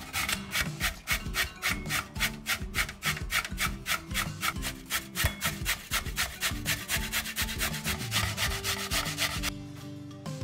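Rhythmic rasping strokes of food being grated on a hand grater, about four strokes a second, stopping about nine and a half seconds in, over soft background music.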